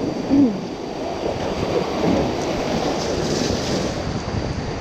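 Rushing whitewater of a river rapid around an inflatable raft, a steady noise, with wind buffeting the microphone. A brief louder pitched sound comes about half a second in.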